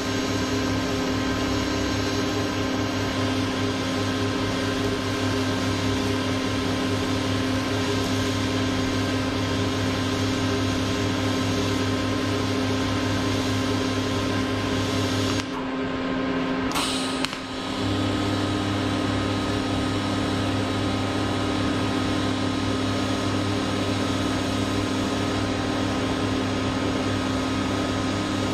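TIG welding arc on a steel frame stretcher: a steady buzzing hum as the arc is run along the joint. The buzz breaks off for about two seconds a little past halfway, then starts again when the arc is re-struck.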